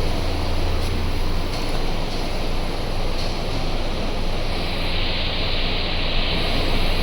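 A car engine running steadily with a low hum, a hiss growing stronger about halfway through.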